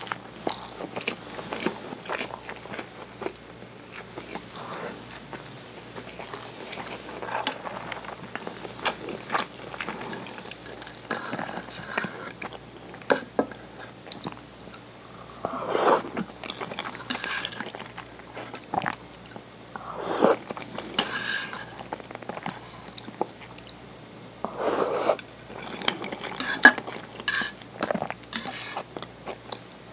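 Close-miked eating sounds: chewing and wet mouth clicks on a rice ball (onigiri), then egg soup eaten and sipped from a bowl, with a few louder sips and swallows in the second half.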